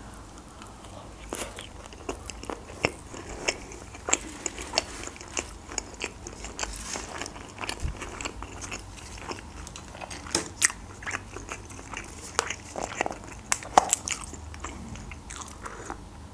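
Close-miked chewing of a mouthful of sushi roll: wet mouth clicks and smacks at irregular intervals.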